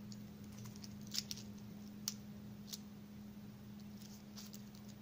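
Stainless steel link bracelet of a Citizen AT2078 watch clicking as the watch is turned over in the hand: a few light metallic clicks, scattered, over a faint steady low hum.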